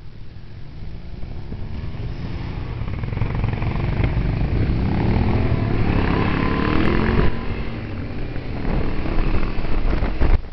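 Motorcycle engine under way, heard from the ridden bike: its pitch climbs steadily over several seconds as it accelerates, drops suddenly about seven seconds in, then climbs again near the end.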